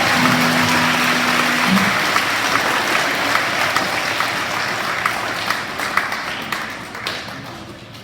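Audience applause, a dense patter of many hands clapping that thins out and fades away over the last two seconds.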